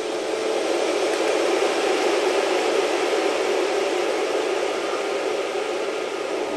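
A steady, toneless rushing hiss with almost no low rumble, swelling slightly over the first couple of seconds and then holding even.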